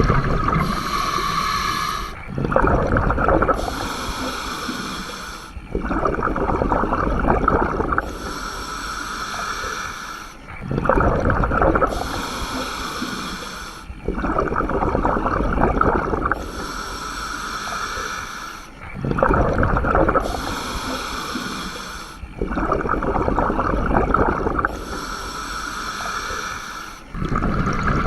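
Scuba diver breathing through a regulator underwater: a hissing inhale alternating with a louder gush of exhaled bubbles, about one breath every four seconds.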